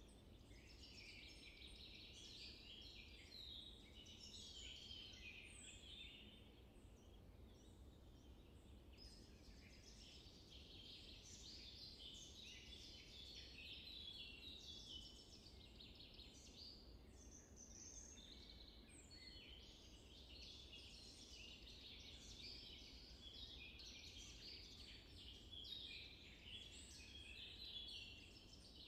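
Faint, continuous chorus of many small birds chirping and chattering over a low rumble of background noise.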